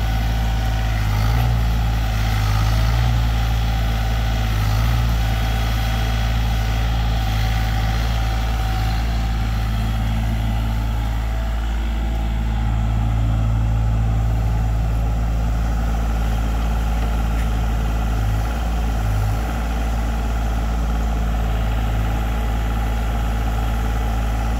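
Sany SY35U mini excavator's diesel engine running steadily as it digs a trench, the engine note swelling briefly a few times under the work.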